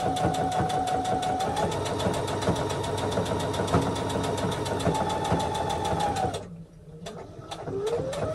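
Electric sewing machine stitching at speed: a steady motor whine with rapid, even needle strokes. It stops about six and a half seconds in and starts again near the end, the whine rising as it picks up speed.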